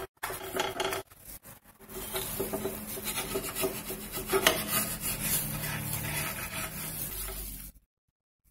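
Wooden spatula scraping against a cast-iron tawa as it is worked under a butter naan to lift it: a few short scrapes at first, then a continuous rough scraping that stops abruptly near the end.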